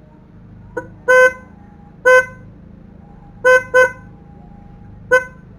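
Aftermarket snail (spiral) horn on a Honda Beat scooter, wired without a relay, tapped in six short beeps as it is tested: a faint blip about a second in, then five sharp blasts of a fraction of a second each, two of them close together near the middle.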